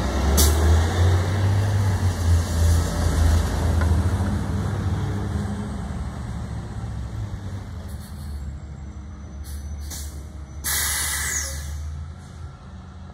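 Natural-gas garbage truck driving away, its low engine rumble loud at first and fading steadily. About eleven seconds in comes a sharp hiss of about a second from its air brakes as it stops.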